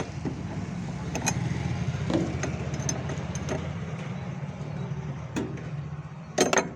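Scattered metallic clicks and knocks of a hand tool loosening the drive-pulley nut on a top-loading washing machine, over a steady low hum, with a louder clatter near the end.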